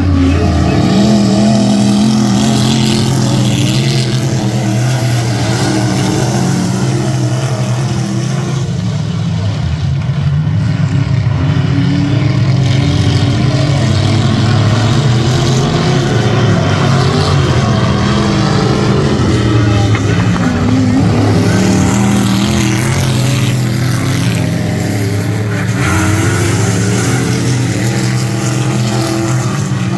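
Engines of several vintage-bodied dirt-track race cars running together at racing speed around the oval. The engine note is loud and continuous, rising and falling in pitch as the cars lap.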